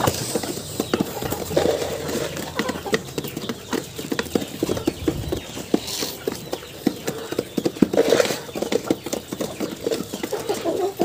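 Rhode Island Red hens pecking feed from a trough: a fast, uneven patter of sharp beak taps and knocks.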